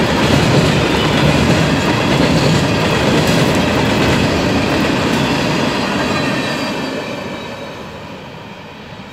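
Open-top coal cars of a freight train rolling past, steel wheels running on the rails with a loud, steady rumble. The sound fades from about six seconds in as the last cars pass and move away.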